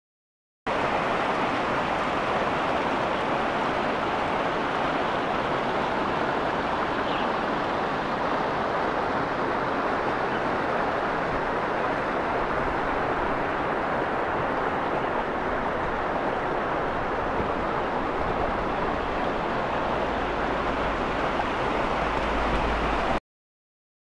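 Stream water rushing over rocks in a small cascade: a steady, even rush that starts and stops abruptly, with a low rumble added in the last few seconds.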